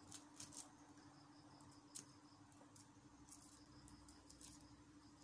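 Near silence: a few faint scratches and ticks from a kitten pawing and biting at a toy on wooden floorboards, the sharpest about two seconds in, over a steady faint hum.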